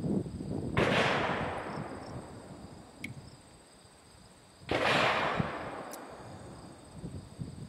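Two gunshots about four seconds apart, each trailing off in a long rolling echo over about two seconds.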